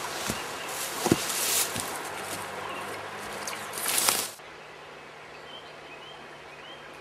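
Rustling and crackling of leaves and twigs, with footsteps and a few sharp snaps, as a person pushes through dense bushes. About four seconds in it cuts off sharply to quiet outdoor ambience with a few faint bird chirps.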